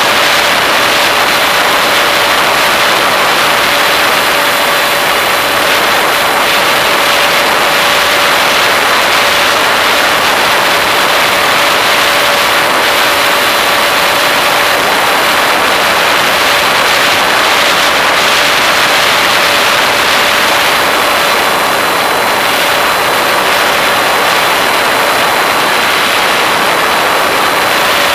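Model airplane's motor and propeller running at a constant pitch, picked up by a camera on the airframe, under loud, steady rushing wind noise.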